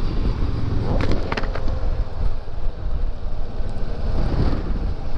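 Motorcycle on the move: wind buffeting the microphone over engine and road noise, with a few sharp clicks about a second in.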